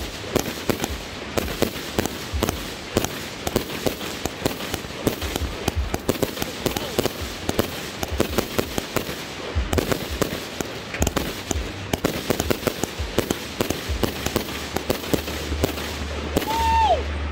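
A 260-shot 'Bite of Death' firework cake firing a rapid, continuous string of shots and aerial bursts, several every second, with no let-up.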